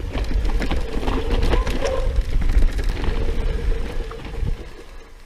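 Mountain bike rolling down rocky dirt singletrack: a heavy low rumble of wind and rolling noise with scattered clicks and rattles from the bike and trail. It eases off near the end.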